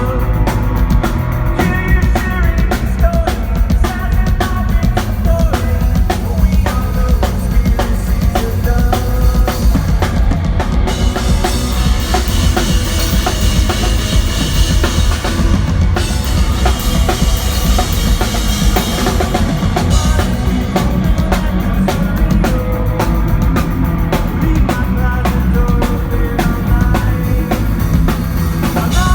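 Live pop-punk band playing an instrumental passage with a driving drum kit, bass drum and snare prominent, over guitars. A brighter, hissier stretch runs from about eleven to sixteen seconds in.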